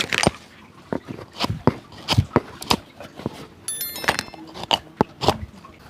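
Irregular sharp strokes and taps of hand work on a shoe, about two or three a second, with a brief high chirp a little past the middle.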